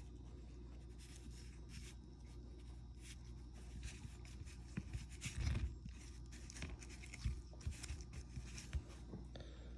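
Light scraping and rustling with scattered small clicks and taps as new seals are pressed into place on a BMW M52 VANOS unit by hand, over a steady low hum.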